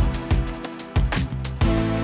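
Background music: a steady beat with plucked guitar-like notes.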